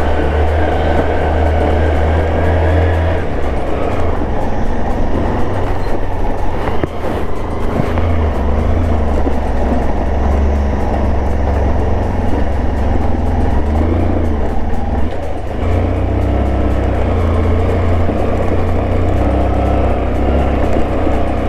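A scooter's engine running steadily under load while it climbs a steep road, with background music over it.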